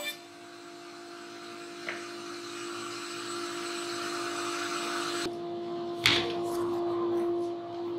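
Workshop dust extractor running with a steady hum. There are a few knocks on the router table, the loudest about six seconds in.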